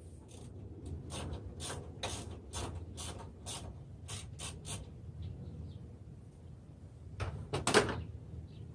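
Hands working parts in a car's engine-bay battery area during a battery swap: a run of sharp, irregular clicks and knocks, then a louder clatter near the end.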